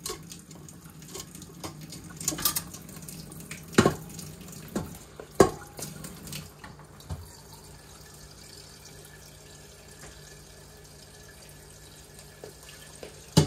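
Kitchen tap running into a stainless steel pot in the sink while raw squirrel meat is rinsed by hand. A few sharp knocks ring out, the loudest about four and five and a half seconds in.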